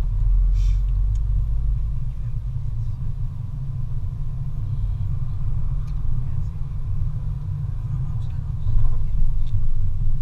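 Steady low rumble inside a moving car's cabin: road and engine noise while driving through town.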